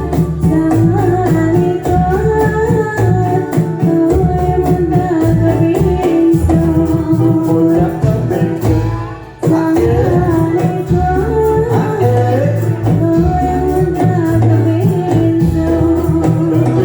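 Dolalak dance music from Central Java: a sung melody over a steady beat of hand drums and jingling percussion, with a brief break about halfway through before the music picks up again.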